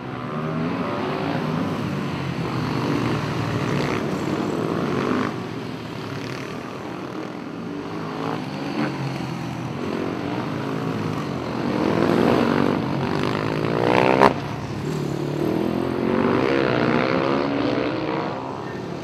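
Supermoto motorcycle engines revving hard through a corner, the pitch repeatedly climbing and dropping as the riders accelerate and shift, with bikes passing one after another. A single sharp crack cuts through about two-thirds of the way in.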